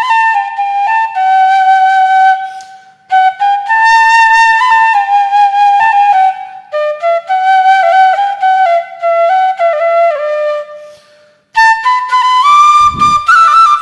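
Background music: a solo flute playing a stepwise melody in phrases, with short breaks about three seconds and about eleven and a half seconds in.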